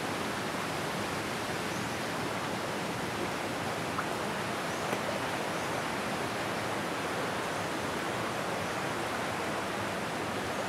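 Water rushing steadily through a narrow moss-covered stone channel, an even splashing flow.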